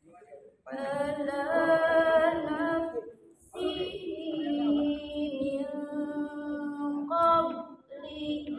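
A woman's voice reciting the Quran from memory in a melodic chant, long held notes that waver in pitch. There are two long phrases, with a short breath about three seconds in, and a third phrase begins near the end.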